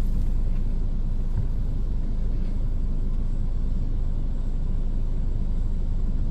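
Steady low rumble heard from inside a stationary vehicle's cabin, even and unbroken, with no distinct knocks or tones.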